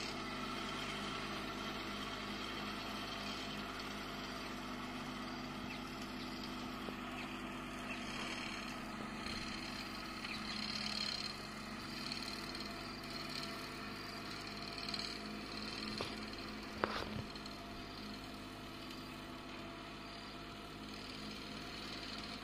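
Engine of a Kubota grass-cutting machine running steadily, with one brief sharp knock about three-quarters of the way through.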